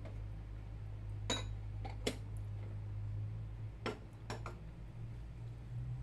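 About four light clinks of kitchen crockery over a steady low hum.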